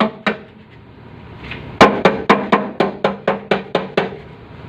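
Hammer blows on the Suzuki Carry's sheet-metal body panel, about four a second, each ringing: a couple of strikes, a pause of about a second and a half, then a run of about ten, the first of them the loudest. It is panel beating to work a dented body line back into shape.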